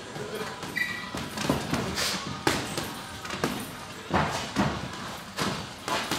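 Boxing sparring: a string of sharp thuds and slaps, about eight of them, as gloved punches land on gloves and headgear, mixed with footwork thumping on the ring canvas.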